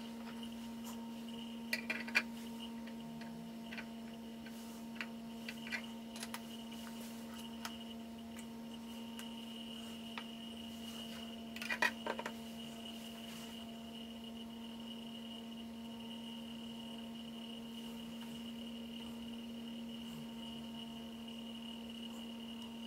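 A few light clicks and taps of a plastic model kit building being handled and set down on a cutting mat, with a small cluster of them about halfway through, over a steady background hum.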